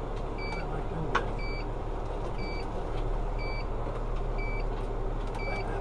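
A short, high electronic beep repeating about once a second over a steady low engine drone.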